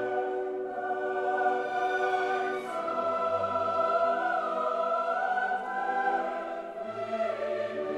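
Classical background music with a choir holding long sustained chords that shift to new chords a couple of times.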